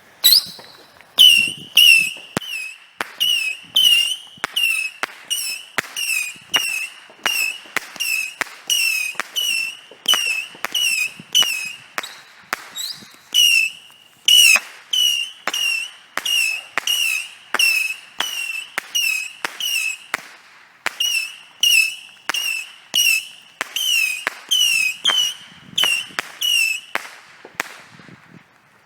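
A Saturn missile battery firing: a long, even string of small whistling rockets, each a short falling whistle ending in a sharp report. It stops short of its rated 100 shots because the battery had got wet.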